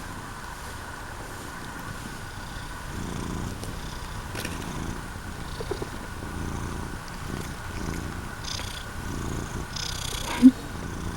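Domestic cat purring close up, the purr swelling and fading in slow pulses about once a second with its breathing. A short loud pitched sound breaks in near the end.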